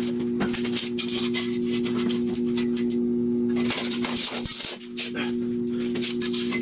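Light clinks and knocks of steel tubing being handled, over a steady two-note hum that lasts throughout.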